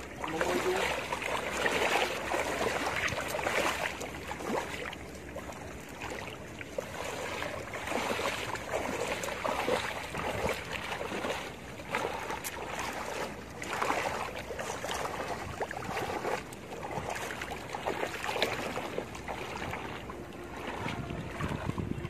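Water sloshing and splashing around a person's legs as he wades through shallow water, swelling and easing in uneven surges with his strides.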